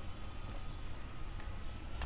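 Quiet room tone: steady microphone hiss with a low hum and a faint thin tone, and a faint tick about one and a half seconds in.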